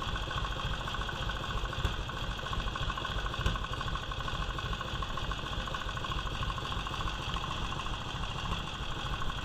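1946 Indian's flathead V-twin engine idling steadily, with a sharper pop about two and three and a half seconds in. The popping is taken for a tight valve, which sounds like it might be an intake valve.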